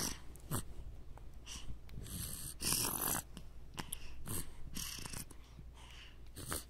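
A baby's congested, snuffly breathing: short irregular rattly breaths through a stuffy nose, one longer and stronger about halfway through. It is the sign of a cold that has not yet cleared.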